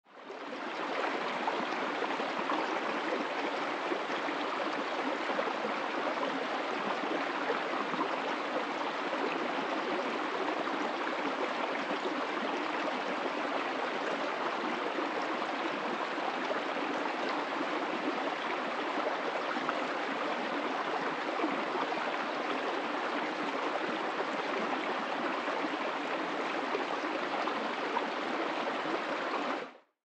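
Shallow mountain stream running over rocks, a steady rush of water that fades in at the start and fades out at the very end.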